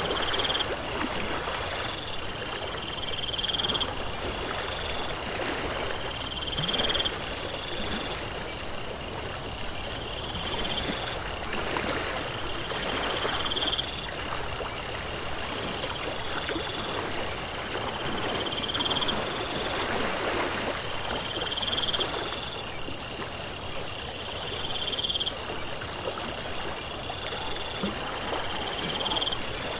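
Nature ambience: running water with frogs and insects calling, one short rising call repeating about every second and a half over steady higher chirping.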